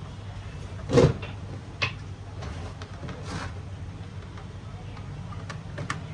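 A loud thump about a second in, then a sharp click, a short rustle and a few light clicks, over a steady low hum.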